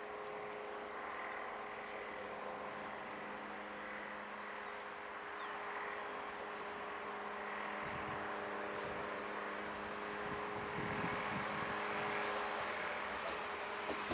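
Approaching train: a steady hum with held tones that grows gradually louder, with low rumbling coming in about eight seconds in. Small birds chirp faintly now and then.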